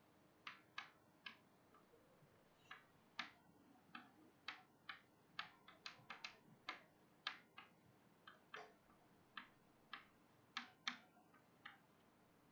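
Chalk writing on a blackboard: faint, uneven taps and short scratches, about two or three a second.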